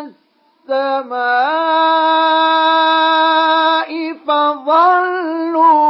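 Male Quran reciter chanting in the melodic mujawwad style. After a brief pause he holds one long note on a steady pitch for about two seconds, then goes on with ornamented, wavering turns on the word 'as-samā''.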